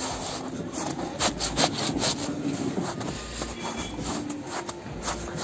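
Boots crunching through coarse, granular snow: a run of irregular footsteps.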